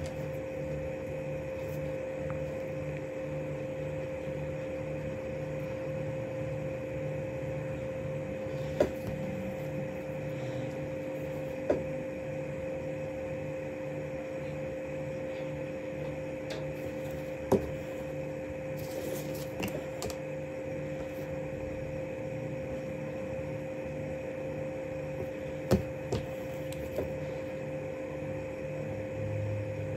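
A steady machine hum, with two constant tones and a low pulsing throb, broken by a few sharp clicks.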